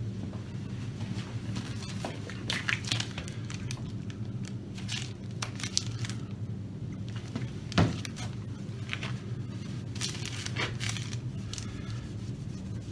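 Rustling and crinkling of cloth and plastic as a polishing cloth is handled and rubbed along the edge of an acrylic panel, with scattered light clicks and a sharper knock about eight seconds in, over a steady low hum.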